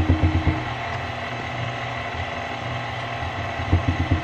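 KitchenAid Classic stand mixer running steadily, beating thick peanut butter cookie dough in its stainless steel bowl, with a few low thumps near the start and again near the end.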